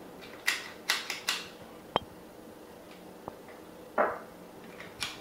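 Small ice cream scoop clicking and scraping against a bowl while dog-treat dough is scooped into balls. There is a quick cluster of clicks and knocks early in the sound, a single sharp click about two seconds in and a short scrape near the end, over a faint steady hum.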